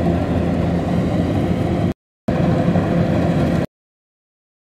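Two-wheel walking tractors' single-cylinder diesel engines running steadily as they pull loaded rice trailers. The sound cuts out completely for a moment about two seconds in, and again from shortly before the end.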